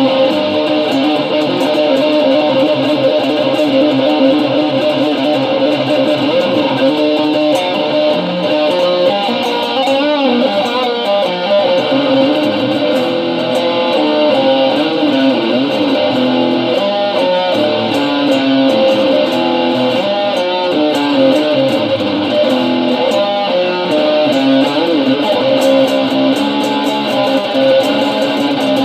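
Guitar being played continuously, an improvised run of notes and strums.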